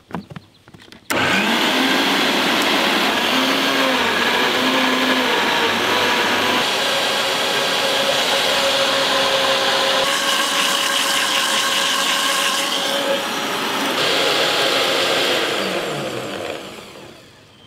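Electric blender blending muskmelon pieces into juice. The motor starts abruptly about a second in, runs steadily, and winds down near the end.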